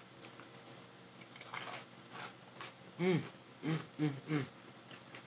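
A crisp chip being bitten and crunched in the mouth, in a few sharp crackles, followed by about four short hummed "mm" sounds while chewing.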